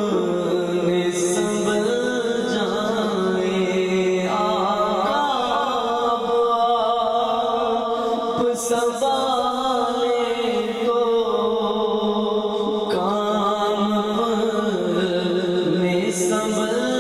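A man sings an Urdu devotional naat solo through a microphone and PA. He holds long notes and adds wavering melodic ornaments, over a steady low drone that shifts pitch in steps.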